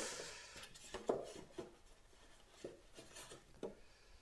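Faint handling noises of small statue parts: a short rustle at the start, then a few light, scattered taps and clicks as pieces are picked up and set down.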